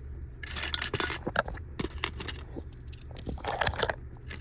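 Small toy dishes and utensils clinking and rattling as they are handled, a string of light clicks with two busier rattles, one about half a second in and one past three seconds.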